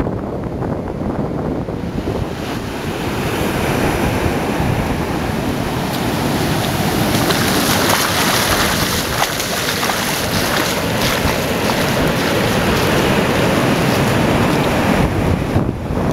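Ocean surf breaking and washing up the beach, with wind rumbling on the microphone. The hiss of the wash is strongest in the middle.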